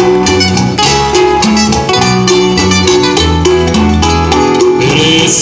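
Live band playing an instrumental guitar passage between sung verses of a bolero: plucked guitar notes over a steady bass line, with no singing.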